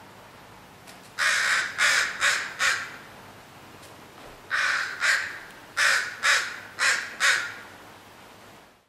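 A crow cawing harshly in two runs, four caws and then six, as it mobs a perched bald eagle.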